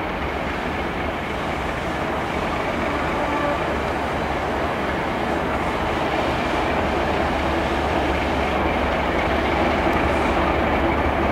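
Class 37 diesel locomotive, with its English Electric V12 engine, running slowly into the platform: a steady low engine drone that grows gradually louder as it draws near.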